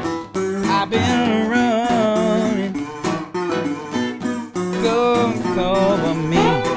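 Background music: a guitar-led song with plucked and strummed guitar and a melody line over it.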